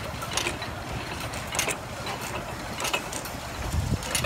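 12 horsepower Field-Brundage stationary gas engine running, with a steady low rumble and a sharp mechanical click about every second and a quarter.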